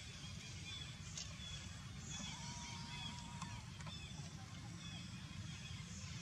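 Faint outdoor ambience: a steady low rumble with short, high chirping calls scattered through it, and a thin steady tone lasting about a second in the middle.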